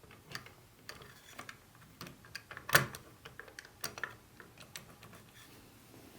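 Hands handling model train set pieces: a run of small, irregular clicks and taps, with one louder knock a little before the three-second mark.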